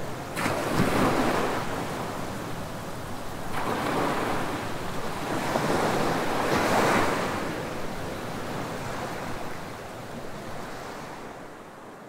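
Small ocean waves breaking and washing up on a sandy beach, surging about every three seconds, then fading out near the end.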